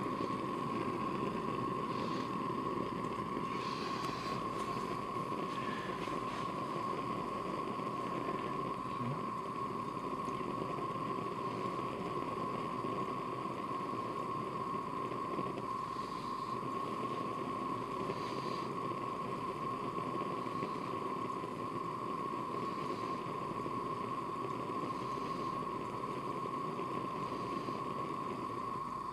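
Water heating in a glass beaker, a steady simmering hiss with a few faint bubbling pops, under a constant high-pitched hum.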